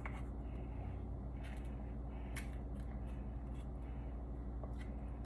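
Soft scraping and a few light clicks as cilantro rice is put into a taco shell, over a steady low hum.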